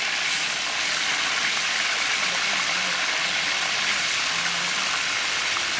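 Chicken pieces deep-frying in hot oil in a steel wok, a steady sizzle.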